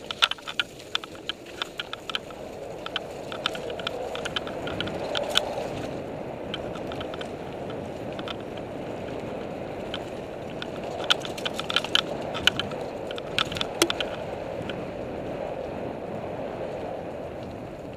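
Mountain bike riding along a dirt bush trail: a steady rush of tyres rolling over dirt and leaf litter, with many sharp clicks and rattles from the bike over bumps, busiest in the first few seconds and again around eleven to fourteen seconds in.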